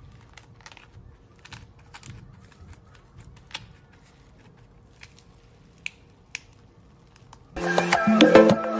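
Slime being handled: faint scattered clicks, pops and crackles as it is pressed and stretched. About seven and a half seconds in, loud music with sharp percussion strikes starts and takes over.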